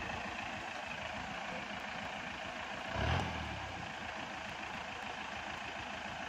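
Mahindra Bolero's diesel engine running under load as the SUV crawls over rocks, with one brief louder surge of engine sound about halfway through.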